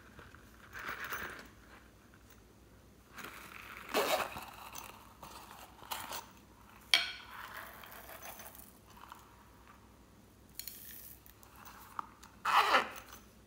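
Small silicone zip coin purse being handled: its zipper rasps open, there is rummaging and a sharp click about halfway, and the zipper rasps shut again near the end.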